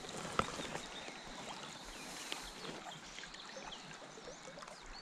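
River water flowing and trickling over a shallow stony bed, with small scattered splashes and ticks and one sharper click about half a second in. A few faint high chirps near the end.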